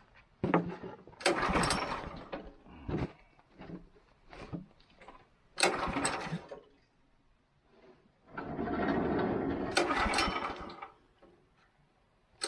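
The Wood-Mizer LX25 sawmill's gas engine is turned over three times and never catches, the last try the longest. It fails to start because the ignition switch was left off.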